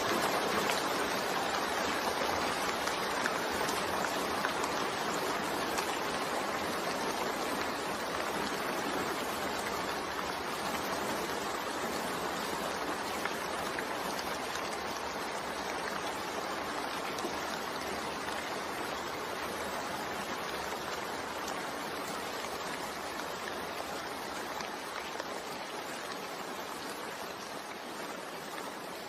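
Steady rain falling as an even hiss of water with no thunder, slowly growing quieter.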